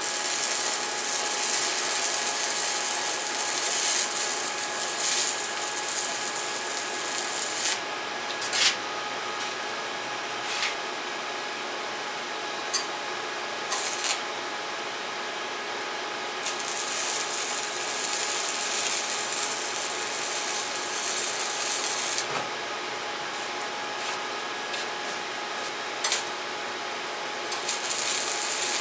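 Stick welding arc on thin 1.6 mm exhaust pipe, crackling and hissing in runs of several seconds. The arc breaks off twice, about 8 and 22 seconds in, with a few short pops as the rod is struck again before it settles back into a steady crackle.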